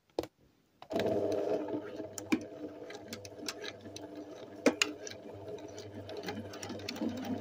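Sewing machine stitching a seam: after a couple of short clicks it starts about a second in and runs steadily, a low hum with light clicks over it.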